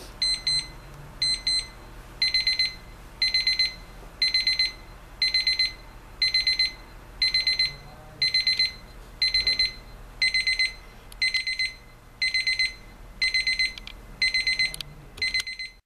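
Westclox 47508 LCD travel alarm clock's electronic ascending alarm beeping. It opens with a few short beeps, then builds to bursts of rapid beeps about once a second, and stops near the end.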